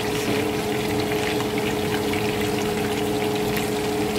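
Anchovy fritters shallow-frying in hot oil in a nonstick pan: a steady sizzle with small scattered crackles, over a steady low hum.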